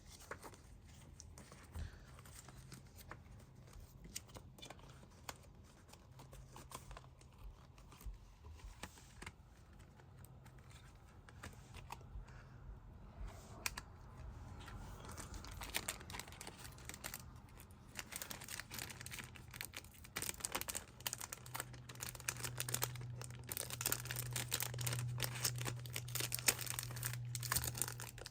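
Packaging of a CD and DVD set being torn and crinkled by hand, irregular crackles that grow busier and louder in the second half, over a low steady hum.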